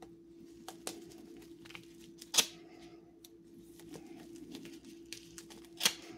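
A folding knife slitting open a plastic bubble-wrap mailer: light scratchy cutting and crinkling of the mailer, with two louder short rips about two and a half seconds in and near the end. A steady low hum runs underneath.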